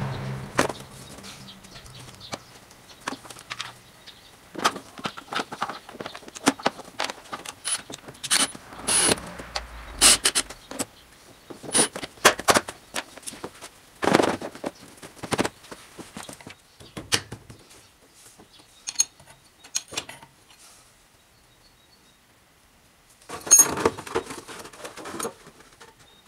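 Hands handling parts of a 50cc scooter: scattered clicks, knocks and short rattles, with a denser burst of rattling near the end. The engine is not running.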